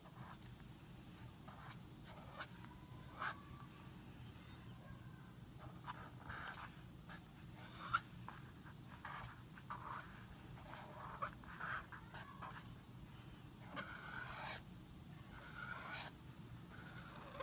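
Marker tip scratching on notebook paper in short, separate strokes with pauses between them, as letters are drawn in calligraphy, with one sharp tap about eight seconds in. A faint steady low hum lies underneath.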